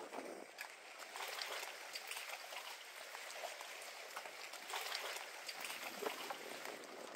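Shallow lagoon water lapping and trickling around wooden dock pilings: a steady wash of small, irregular splashes.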